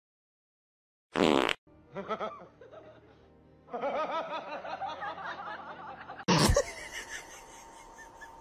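Laughter, likely a canned laugh track, rising about four seconds in and running for about two seconds. It follows a short loud burst about a second in, and a sudden loud sound comes at about six seconds.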